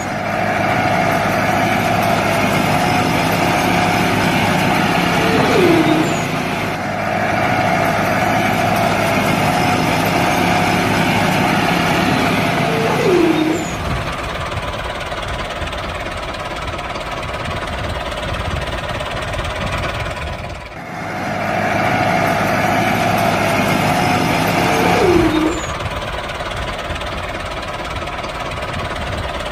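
Tractor engine running steadily, with a short falling squeal three times.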